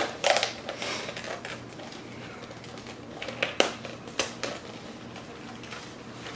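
Snack packaging being opened and handled by hand: scattered crinkles, rustles and sharp clicks of card and plastic.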